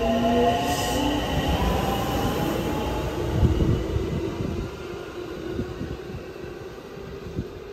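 JR West 225 series electric train pulling out and accelerating past the platform, its motors whining upward in pitch over a rumble of wheels, with a few heavy wheel thumps about three and a half seconds in. The sound fades as the last car passes and the train draws away.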